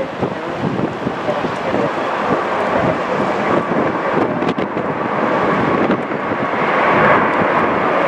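Airbus A320 jet engines at go-around thrust as the airliner climbs away low overhead, growing louder near the end. Heavy gusts of wind buffet the microphone throughout.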